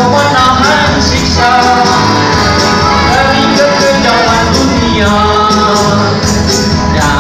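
Music: a song sung over band accompaniment with a steady percussion beat.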